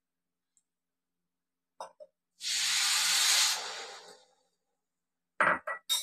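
Water poured from a glass bowl onto sugar in a steel kadhai for syrup: a steady rushing splash lasting under two seconds that tails off, followed near the end by a few light clinks.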